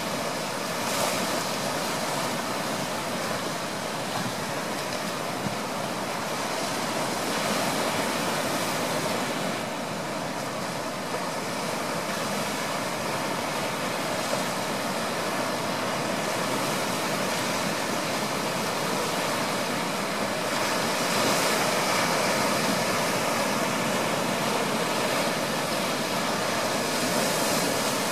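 Small waves breaking and washing up on a sandy beach: steady surf that swells and eases every several seconds.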